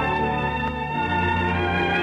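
Organ music playing sustained chords, moving to a new chord with a heavier bass about a second in.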